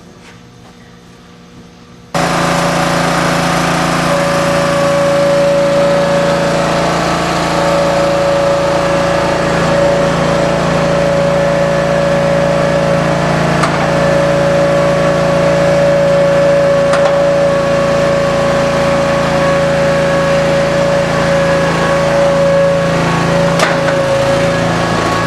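The tire baler's 16-hp V-twin Briggs & Stratton gas engine, which drives its hydraulic pump, comes in suddenly about two seconds in and runs steadily, with a steady high whine over the engine note and a few sharp ticks.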